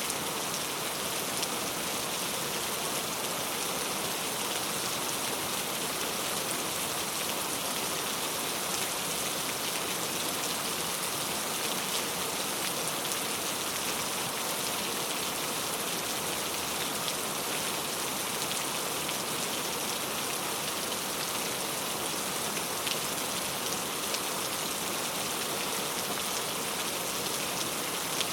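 Steady rain falling, an even hiss of many drops with faint scattered individual patters, unchanging in strength.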